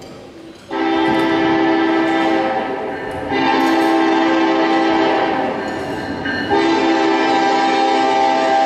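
Recorded train horn sounding three long blasts in a row, each a steady chord of several tones, the first starting under a second in and the others at about 3 and 6.5 seconds.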